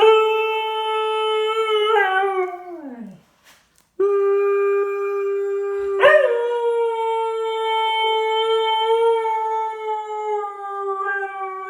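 A dog howling: two long, steady howls. The first slides down in pitch and dies away about three seconds in. The second starts about a second later, lifts briefly in pitch, then holds and falls away near the end.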